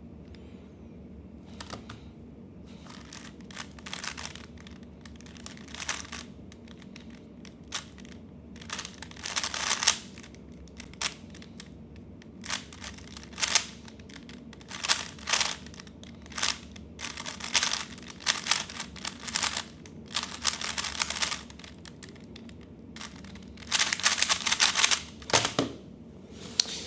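A plastic 3x3 speedcube being turned in fast bursts of clicking and clacking, with short pauses between the bursts and a dense flurry near the end.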